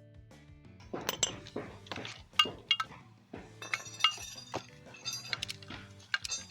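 Sharp metallic clinks and knocks, about a dozen, some of them ringing briefly, as metal tools and parts are handled during a brake disc change, over quiet background music.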